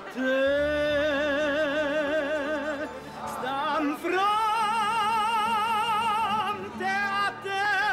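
A tenor singing in operatic style, with wide vibrato on long held notes, over a low instrumental accompaniment. About three seconds in the phrase breaks and he climbs to a higher sustained note.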